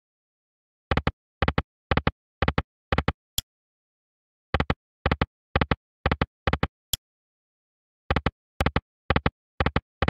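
Online slot machine sound effects: the Book of Ra Magic reels stopping one after another, a soft knock for each of five reels about half a second apart. The round repeats three times, with a short high tick after each of the first two rounds.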